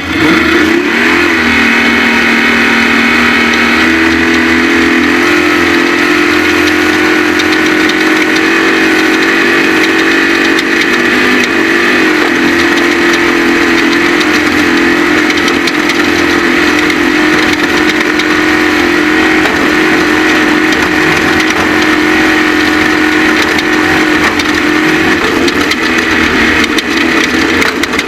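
Off-road race vehicle's engine running loud and steady at high revs, its pitch shifting once in the first few seconds and then holding.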